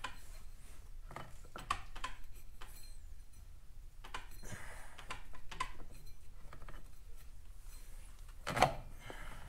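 Light metallic clicks and clinks from hands working the belt and outer face onto a scooter's CVT variator, with one sharper knock near the end.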